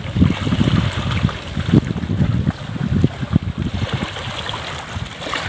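Wind buffeting the microphone in uneven low gusts, over a faint steady hiss.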